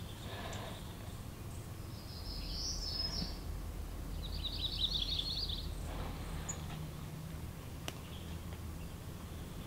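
Songbird singing twice: a short high phrase about two seconds in, then a rapid trill about four seconds in, over a steady low hum. A single sharp click near the end.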